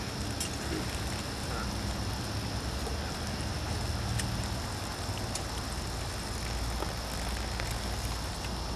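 Faint crackling of wood chips as a shovel works through a wood-chip berm, with a few scattered light clicks over a steady low rumble.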